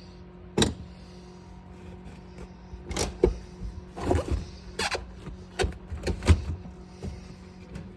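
Irregular sharp clicks and knocks, about eight, bunched toward the middle and later part, with some scraping between them, as car interior parts are handled and taken off by hand. A steady low hum runs underneath.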